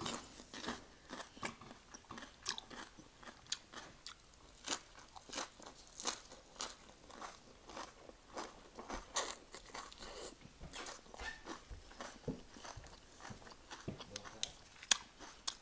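Close-up chewing of crisp raw greens wrapped around crispy bánh xèo, in irregular wet crunches about one or two a second.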